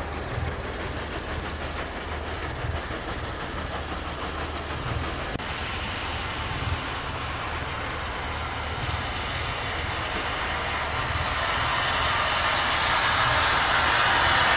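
Ex-Réseau Breton 4-6-0 steam tank locomotive E327 approaching with its train, the running noise and hiss growing steadily louder as it nears.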